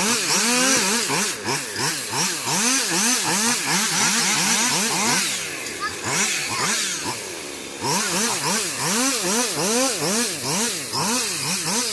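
Chainsaw engine revving up and back down over and over, about two or three surges a second, easing off for a couple of seconds in the middle before surging again.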